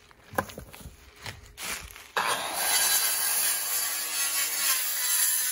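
A corded power saw cutting through a wooden board: it starts suddenly about two seconds in, runs steadily, and stops abruptly near the end. Light knocks and rustling of wood are heard before it.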